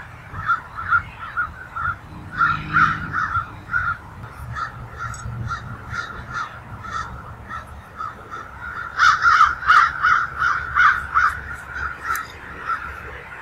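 Birds calling over and over, several short calls a second with many overlapping, busiest from about nine to eleven seconds in.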